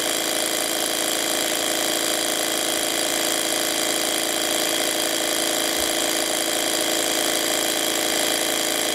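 Rhombic-drive Stirling cryocooler running, its built-in electric motor driving the piston and displacer: a steady mechanical hum made of several steady tones, with no change in speed. The cooler is running normally, pumping heat out of its cold end.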